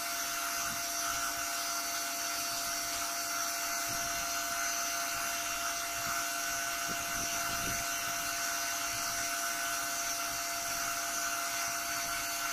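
Dual high-speed cooling fans of a laser diode module, each turning around 10,000 RPM, running with a steady whine over the rush of their airflow.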